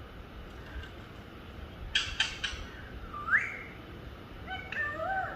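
Pet parrot calling: a quick run of three short harsh calls about two seconds in, a rising whistle about a second later, then a couple of short calls with gliding pitch near the end.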